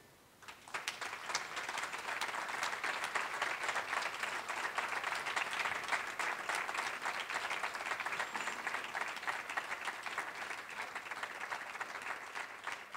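Audience applauding: many hands clapping, starting about half a second in and slowly dying down near the end.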